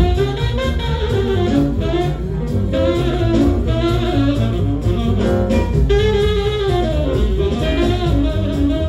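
Jazz record playing on a Lenco L75 turntable: a tenor saxophone leads over a steady rhythm section.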